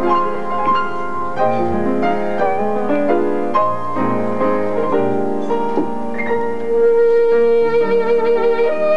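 Upright piano playing an introduction, joined about seven seconds in by a saxophone playing long held notes over it.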